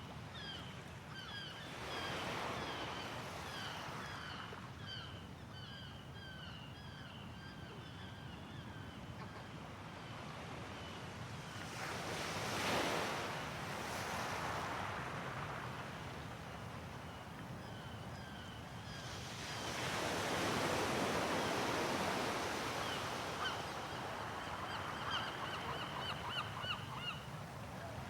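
Sea waves washing ashore in slow surges, the loudest about halfway through and another long one from about two-thirds in. A flock of gulls calls over them with many short, rapid cries, thick through the first third and again near the end.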